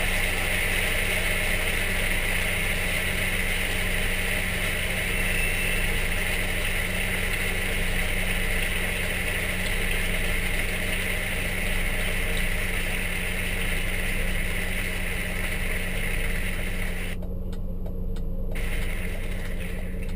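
Mini Cooper S running on the road, a steady engine drone with road and wind hiss. The higher hiss drops out briefly about three seconds before the end.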